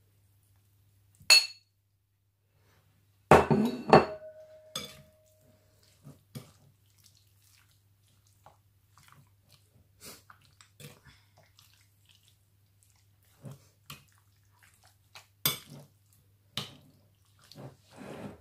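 Metal spoon clinking and scraping against a ceramic plate and a glass mixing bowl as pork slices are pushed into marinade and stirred. A loud clatter about three to four seconds in leaves a short ringing tone, followed by scattered lighter clinks.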